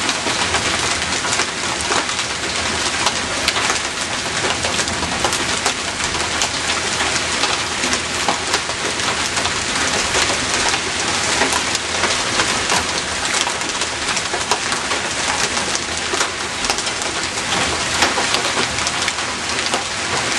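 Hail and rain pelting down in a dense, steady clatter of countless small impacts.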